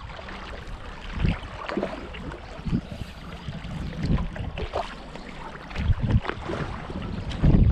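Stand-up paddleboard paddle strokes: the blade dipping and pulling through calm water about once a second, with splashes, over a low wind rumble on the microphone.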